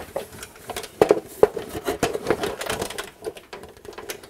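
Irregular clicks and knocks of a polished aluminum breastplate and its buckles as the leather straps are pulled tight and fastened on the wearer.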